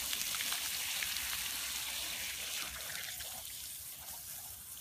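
Water hissing as it sprays up from an open sprinkler riser, fading away about three seconds in as the spray stops.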